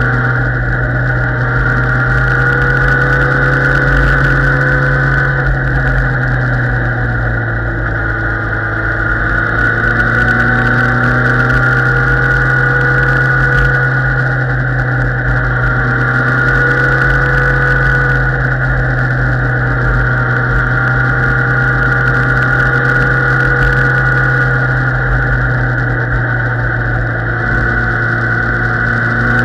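Motorcycle engine running steadily at road speed under a low rumble. Its pitch eases down a little about a quarter of the way through, then climbs back.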